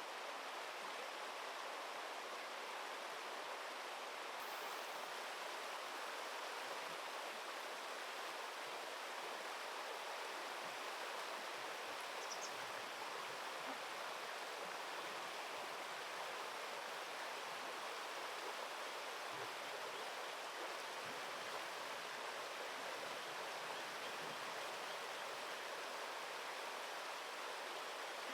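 Steady rushing of flowing river water, an even noise that holds level throughout.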